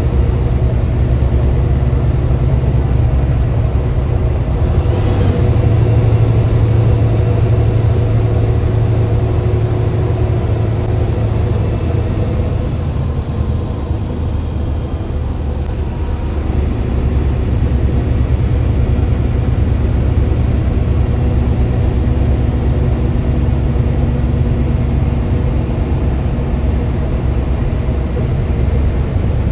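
Mercedes-Benz bus diesel engine running under load, heard from inside the driver's cabin as a steady low rumble. It eases off briefly about halfway through, then pulls again.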